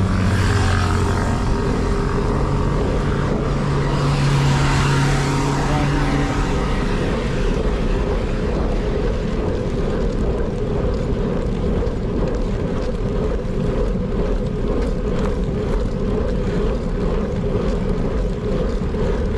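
Wind buffeting the microphone of a moving bicycle rider, a steady low rushing noise with road noise under it. A steadier hum lies over it during the first six seconds or so.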